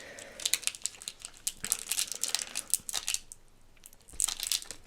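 Candy wrapper crinkling and tearing as it is opened, with a short pause about three seconds in.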